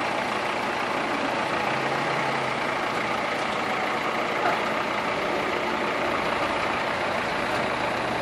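Diesel engine of an Escorts backhoe loader running steadily while its front loader holds and tips a raised bucket of soil over a tractor trailer.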